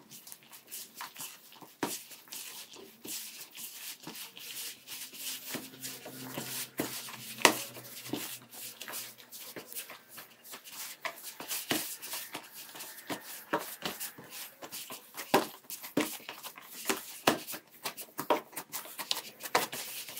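A hand mixing and kneading flour into wet baklava dough in a plastic bowl: irregular rustling and squishing with scattered soft taps. Loose, crumbly flour is being worked into a ball of dough.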